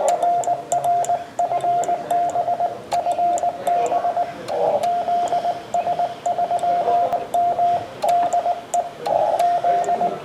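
Morse code (CW) on an amateur radio: a single steady tone keyed on and off in dots and dashes over band hiss, with sharp clicks scattered through it.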